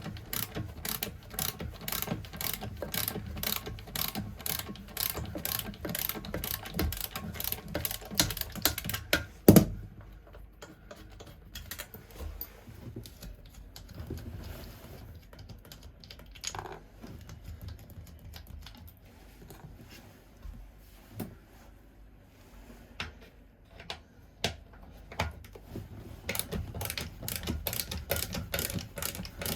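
Rapid, even mechanical clicking of a hand tool, about four clicks a second, broken by a single loud knock about a third of the way in. Scattered clicks and knocks follow, then the rapid clicking resumes near the end.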